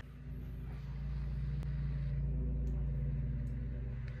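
A steady low mechanical hum, such as a motor or appliance running, with a faint click about a second and a half in.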